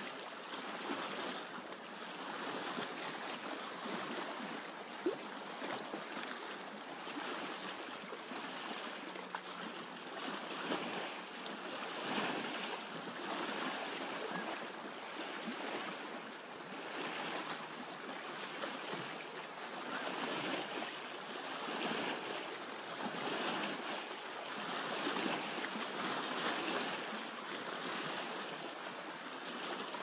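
Small waves lapping and washing over rocks at the water's edge, a continuous splashing wash that swells and eases every second or two.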